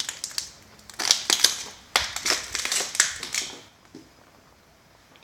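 Footsteps crunching and crackling over dry leaves and broken debris on a hard floor, then stopping for the last second and a half.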